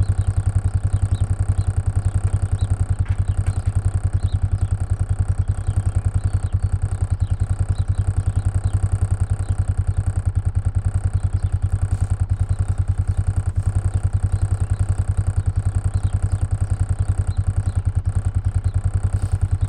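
A vehicle engine running steadily at an even speed, with a rapid regular pulsing.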